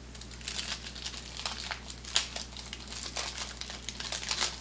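Wax-paper wrapper of a 1988 Topps Big baseball card pack crinkling as it is peeled open by hand. The crackles come in quick irregular runs, with one sharp louder crackle a little after two seconds.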